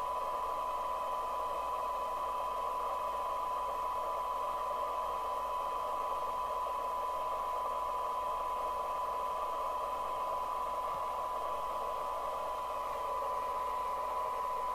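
A steady test tone with hiss in the background from the Binatone Route 66 CB radio's receiver audio, unchanging throughout. The receiver is demodulating a weak, tone-modulated signal from a signal generator while its sensitivity is set against a SINAD meter.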